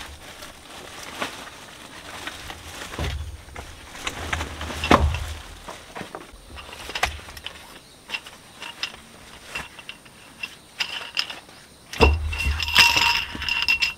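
Plastic wrapping and a fabric carry bag rustling as a folding camp cot is unpacked, with its metal frame poles clicking and clinking together. Near the end a sharp knock sets a pole ringing briefly.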